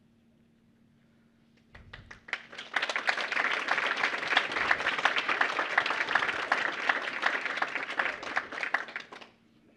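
Audience applauding: a few scattered claps about two seconds in quickly swell into full applause, which stops abruptly near the end.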